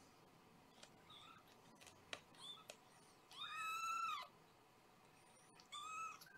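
Young kitten mewing: a few small high squeaks, then one long, high mew about three seconds in and a shorter one near the end.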